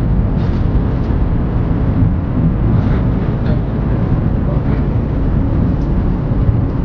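Steady road and engine noise inside a moving car at speed, a low rumble with no changes.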